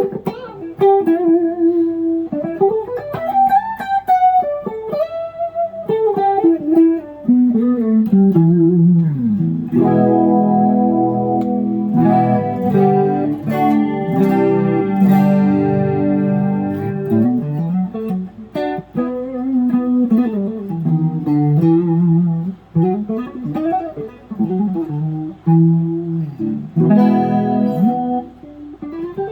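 Electric guitar with Kiesel Polarity active pickups played through an amp, in single-note lines with string bends and vibrato. Partway through there is a stretch of held chords that ring out.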